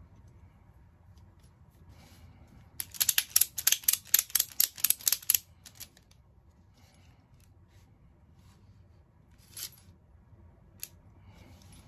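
Ratchet strap's ratchet mechanism being worked: a quick run of a dozen or so sharp clicks over about two and a half seconds as the pawl snaps over the gear teeth, then two single clicks near the end.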